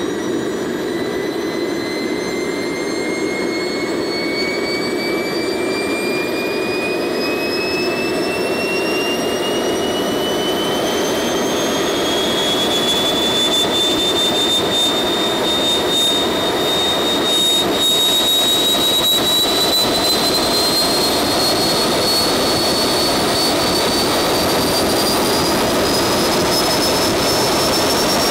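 Small RC turbine jet engine running on biodiesel, spooling up through its start-up fuel ramp: a rushing noise under a whine that climbs steadily in pitch, levels off briefly about halfway, then rises again and grows a little louder.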